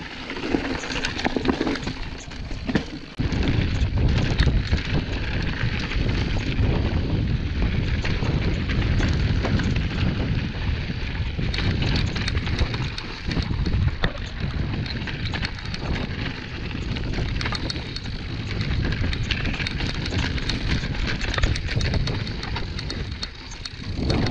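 Wind noise on the microphone of a body-mounted action camera, heavy and rumbling from about three seconds in, over the clatter and sharp knocks of a mountain bike riding fast down rocky singletrack.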